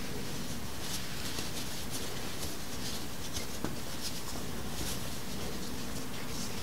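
Soft rustling and rubbing of jersey and fleece fabric handled by hand, as a small sewn baby shoe is turned right side out through its turning opening. A light tick about three and a half seconds in.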